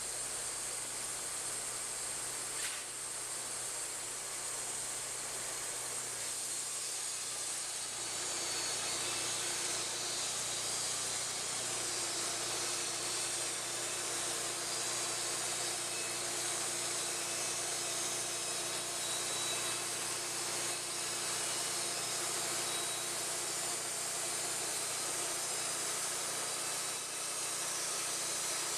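Wood-Mizer LT40 portable band sawmill running, with a steady high hiss of machinery. About eight seconds in, a steady whine joins, fitting the band blade sawing through a pine log.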